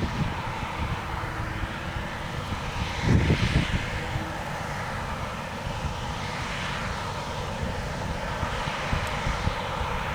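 New Holland CR8.90 combine harvester's diesel engine running steadily at work, with wind buffeting the microphone about three seconds in.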